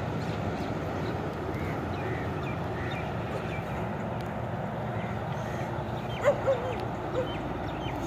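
A flock of sheep walking along a dirt track: a steady shuffle of many hooves on the ground, with three short bleats a little after six seconds in.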